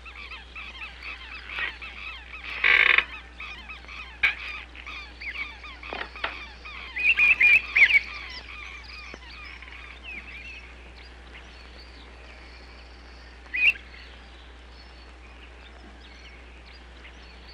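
A flock of birds calling and chattering at once, with a few louder squawking calls standing out; the chatter thins out in the second half.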